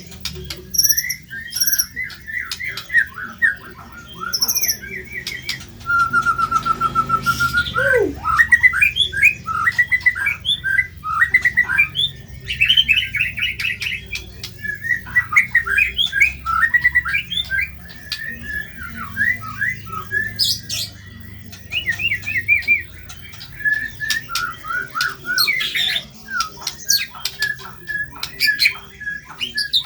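White-rumped shama (murai batu) singing a varied song of fast trills, short whistled notes and harsh chattering phrases. About six seconds in comes one long steady trill that ends in a swoop down in pitch.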